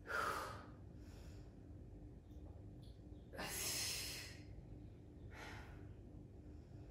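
A woman's heavy, forceful breaths as she works through an abdominal leg-raise exercise: a few sharp exhalations, the longest and loudest about halfway, from exertion.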